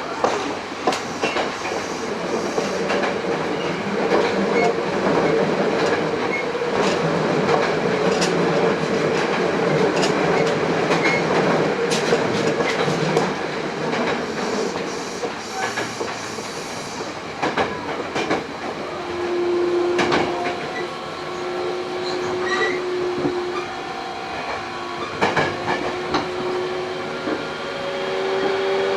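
Running sound heard from inside a Hankyu 8000 series train car, with wheels clicking over rail joints. From about two-thirds of the way in, the whine of the Toshiba GTO-VVVF traction inverter and motors rises slowly in pitch.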